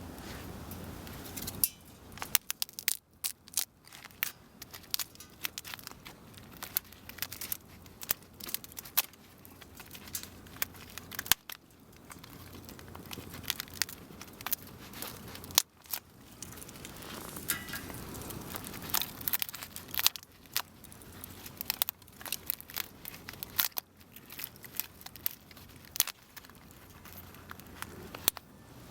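Wood fire crackling in a Solo Stove: irregular sharp pops and snaps, dense throughout, over a low steady rush.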